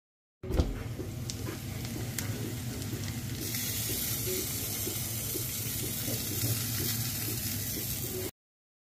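Onions sizzling as they fry in a pan, over a low steady hum, with a sharp knock just as the sound cuts in. About three seconds in the sizzle turns brighter and louder, and it cuts off abruptly near the end.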